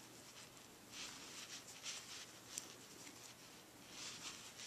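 Faint rustling and scratching of yarn being pulled through single crochet stitches with a metal crochet hook: a few brief soft swishes and one small click about two and a half seconds in.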